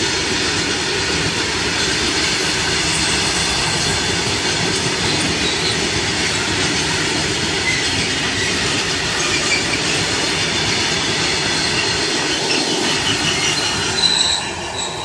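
Open-top freight wagons rolling past at close range: a steady rumble of wheels on the rails with short high wheel squeals. The loudest squeal comes near the end as the brake van passes, and then the sound starts to fade.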